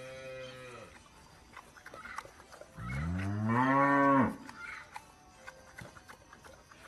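Cow mooing twice: a short moo at the start, then a long, loud moo about three seconds in that rises in pitch before cutting off.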